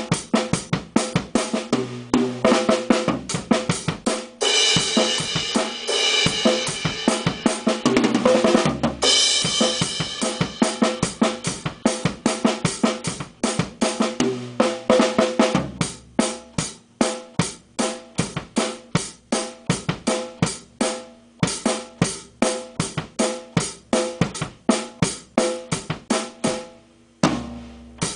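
Drum kit being played with sticks: fast, dense snare, bass drum and cymbal strokes. A crash cymbal rings out from about four to nine seconds in, and the playing stops briefly near the end before picking up again.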